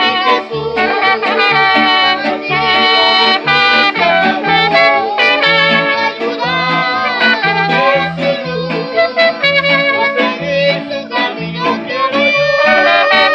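A boy singing a song with a small live band: two trumpets, an accordion and guitars, over a steady, evenly repeating bass line.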